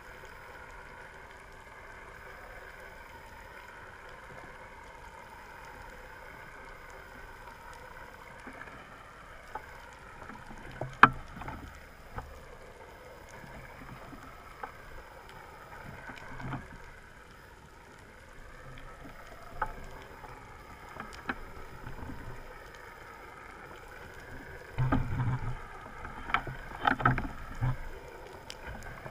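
Underwater ambience: a boat's engine drones through the water as a steady hum with slowly wavering tones. A sharp click sounds about eleven seconds in, scattered smaller clicks follow, and a cluster of louder knocks and rushing noises comes near the end.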